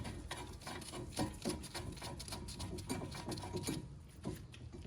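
Irregular light metallic clicks and taps as a brake caliper bracket bolt is lined up and threaded in by hand, with a couple of louder taps about a second in.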